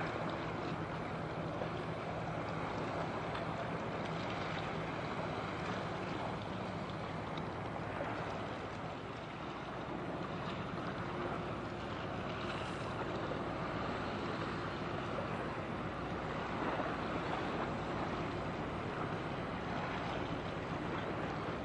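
Steady low engine drone of a large container ship passing by, over a constant wash of wind and water noise. The drone fades after about nine seconds.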